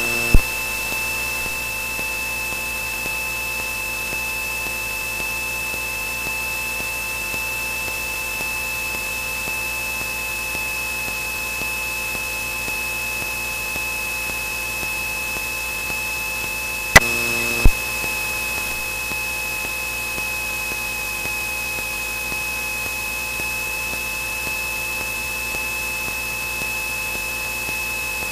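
Cessna 172N cockpit audio during final approach and touchdown: a steady high-pitched whine over an even hiss, with two short clicks about 17 seconds in.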